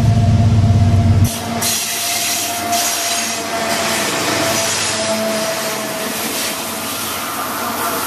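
Diesel freight locomotives passing close by. A heavy low engine rumble drops away suddenly about a second in. It gives way to the loud rushing clatter of locomotives and wagons rolling past on the rails, with a steady thin whine running through it.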